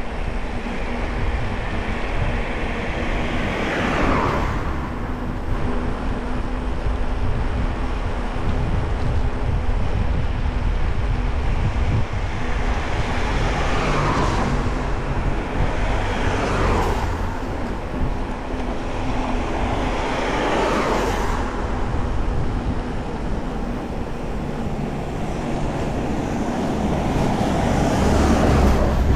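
Road traffic passing: about five vehicles go by one after another, each a whoosh that falls in pitch as it passes. Underneath runs a steady low rumble of wind buffeting a chest-mounted action-camera microphone while riding.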